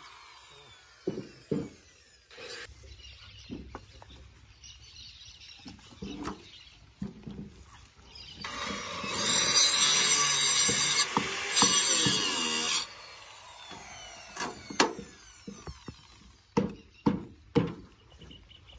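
A corded electric power tool runs steadily for about four seconds near the middle, working on a steel feed trough. Scattered sharp knocks come before and after it, several in quick succession near the end.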